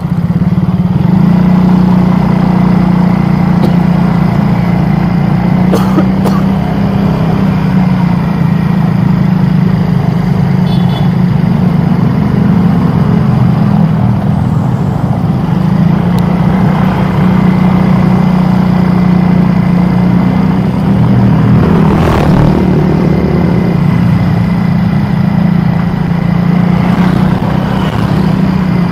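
A road vehicle's engine running steadily, a constant low drone, amid street traffic, with a couple of brief louder noises passing.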